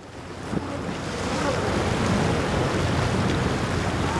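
Wind buffeting the microphone over the wash of choppy sea and waves breaking against a rock jetty, fading in over the first second.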